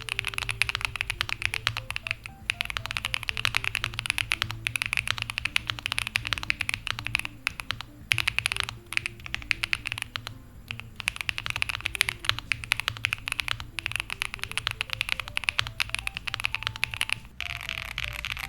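Fast typing on a Monsgeek M1 V3 mechanical keyboard fitted with Akko x Monsgeek Green Fog heavy linear switches and double-shot PBT keycaps: a dense run of keystrokes with a deep, marbly sound, stopping briefly a few times. Soft background music plays underneath.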